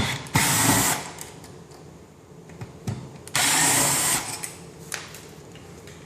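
Power drill/driver running in two short bursts about three seconds apart, backing out the screws to remove an old light switch.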